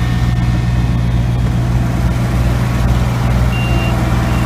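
Heavy construction machine's engine running steadily with a deep, even rumble.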